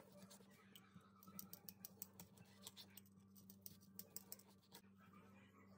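Faint, quick ticks and taps of a kitchen knife on a plastic cutting board as it slices through smoked pork, dying away near the end, over a low steady hum.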